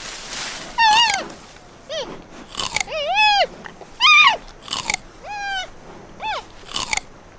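Giant panda chewing bamboo, with crisp crunches and snaps as the stalks and leaves are bitten. Short high calls, falling or rising-then-falling in pitch, repeat about once a second over the chewing.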